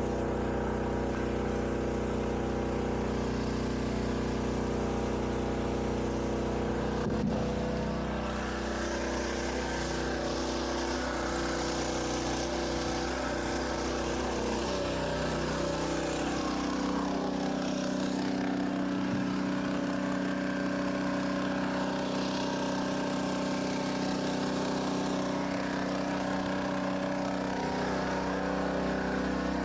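A motor running steadily, its pitch and tone shifting a little about halfway through, with a single knock about seven seconds in.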